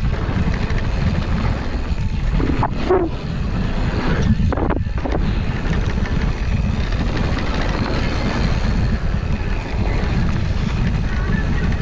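Wind buffeting the microphone of a camera on a mountain bike riding fast down a dirt trail, a steady low rumble mixed with tyre noise on packed dirt. Two brief knocks or rattles from the bike over bumps, about three and five seconds in.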